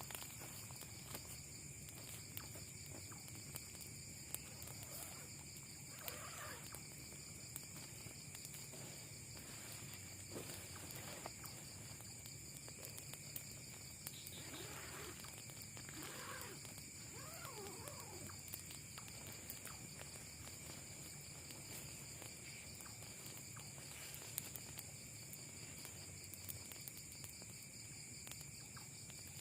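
Night forest insect chorus: a steady, high, unbroken trilling of several layers. A few faint wavering animal calls rise and fall about six seconds in and again around the middle.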